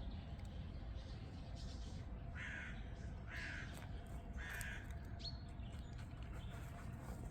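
Three harsh, caw-like bird calls, each under half a second and about a second apart, over a steady low rumble.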